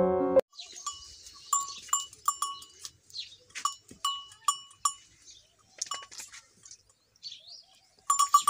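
Intro music cuts off about half a second in. Then a small metal bell on a goat clinks again and again at uneven intervals as the animal moves, over faint rustling.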